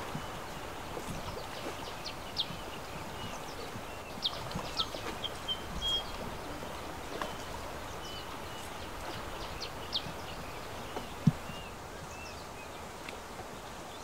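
Outdoor river ambience: a steady noise bed with short bird chirps throughout, and occasional knocks of bamboo poles on a bamboo raft, the sharpest about eleven seconds in.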